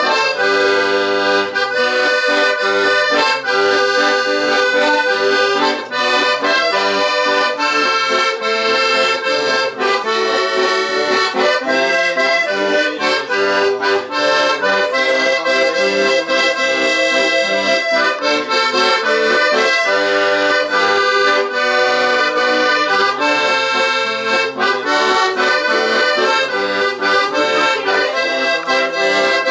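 Accordion playing a tune without pause: a melody over sustained chords, the notes changing several times a second.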